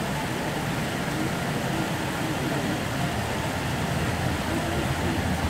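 Outdoor crowd ambience: a steady low rumble and hiss with faint murmuring voices.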